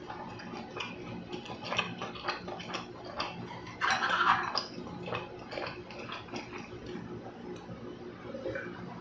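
Close-miked eating sounds: a run of small clicks and taps from utensils against dishes and mouth sounds, with one louder, longer burst about four seconds in, over a faint steady hum.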